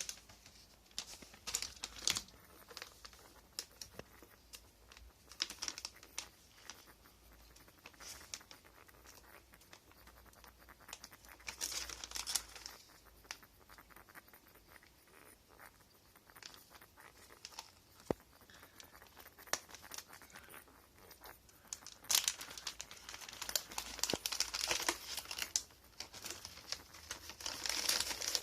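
Intermittent dry rustling and crinkling with scattered small clicks. It grows louder in a cluster about 12 seconds in and again from about 22 seconds on.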